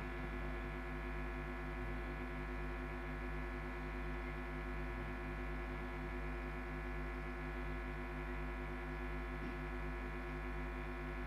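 Steady electrical hum from a microphone and sound system: a set of even, unchanging tones with no voices over it.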